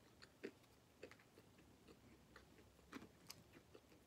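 Faint chewing of toast topped with jam and crunchy nuts: soft irregular crunches and clicks, a little louder about half a second in and near three seconds in.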